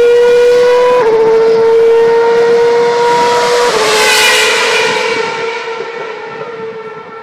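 2012 Formula 1 car's 2.4-litre V8 at high revs, the pitch creeping up and then dropping sharply at two upshifts, about one second and nearly four seconds in. After the second shift the sound fades steadily as the car pulls away.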